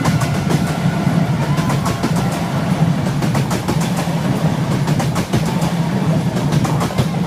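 Passenger train running past, a steady low rumble with a fast, dense clatter of wheels over the rails.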